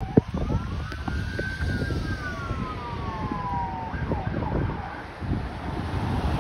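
Fire apparatus siren wailing: one slow rise and fall in pitch, then a new rise starting about four seconds in, over a steady low rumble. A sharp click sounds right at the start.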